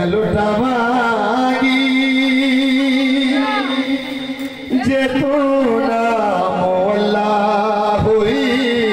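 A man chanting in long, wavering held notes with melodic runs, the zakir's sung recitation. It dips briefly about four and a half seconds in.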